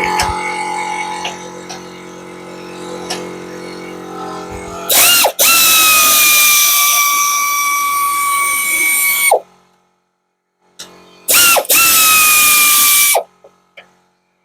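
Battery-powered socket tool running in two bursts: a loud, steady high motor whine for about four and a half seconds, then after a short pause about two seconds more. Each burst opens with a quick stop-start on the trigger.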